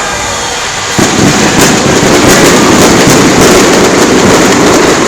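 Aerial fireworks exploding in a rapid, continuous barrage of bangs and crackle, starting suddenly about a second in.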